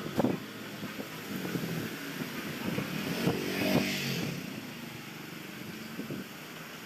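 A motorcycle engine running as it passes, rising to its loudest between three and four seconds in and then fading, over steady outdoor background noise.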